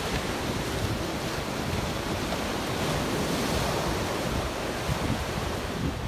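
Ocean surf breaking and washing up a sandy beach, swelling a little in the middle as a wave runs in, with wind rumbling on the microphone.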